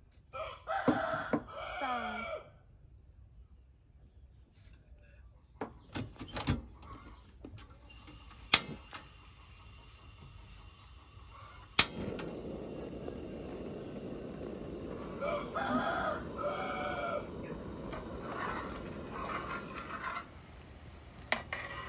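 Rooster crowing, once near the start and again in the second half. Between the crows come a few sharp clicks, then a steady hiss from about halfway through.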